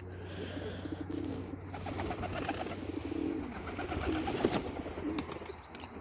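Domestic pigeons cooing, several low calls overlapping.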